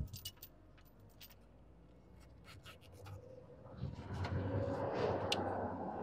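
Faint small clicks from a cable padlock being handled, then, about four seconds in, a louder rough rubbing noise as fingers work the lock body against the tyre.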